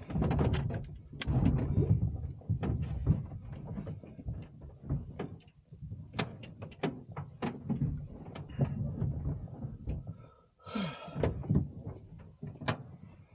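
Irregular clicks, knocks and clunks from a glider's cockpit and fuselage as it is handled on the ground, over a low rumble.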